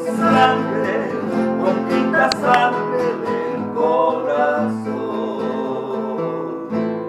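Two acoustic guitars strummed and picked, accompanying men's voices singing a bolero. The phrase dies away near the end.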